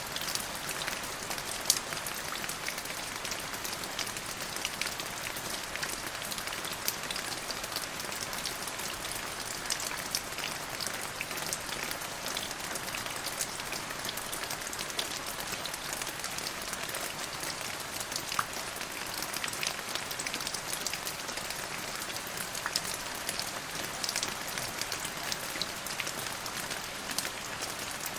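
Steady rain falling, a dense even patter with many individual drops ticking sharply on a hard surface.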